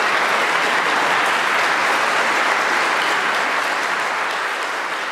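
Audience applauding: dense, steady clapping that begins to fade out near the end.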